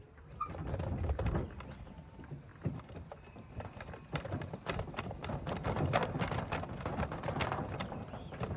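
Irregular clattering, knocking and rustling of hand work, as tools and metal parts are handled and moved about.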